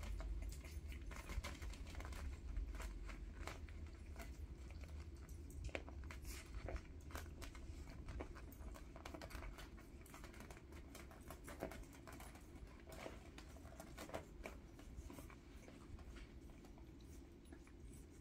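Two-week-old miniature schnauzer puppies suckling at their mother: faint, scattered little smacking clicks over a steady low rumble.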